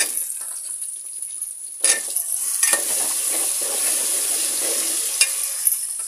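Diced potatoes sizzling in hot oil in an aluminium handi, growing louder about two seconds in. A metal spoon stirs them, with a few sharp knocks and scrapes against the pot.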